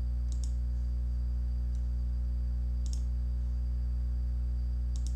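Computer mouse clicking: three quick double clicks about two and a half seconds apart, over a steady low hum with a faint high whine.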